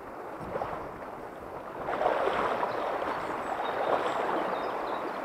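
River water rushing over shallow riffles, a steady rush that grows louder about two seconds in.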